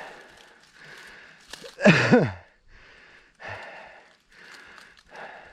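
A rider breathing hard while pedalling a mountain bike uphill, with a short puff of breath every half second or so. About two seconds in comes one loud voiced sigh that falls in pitch.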